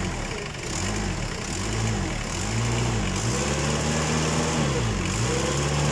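Toyota 7FD20 forklift diesel engine running and being revved up and down about five times, its pitch rising and falling with each rev. It runs properly now, the hard start put down to a fuse in the glow-plug heater circuit.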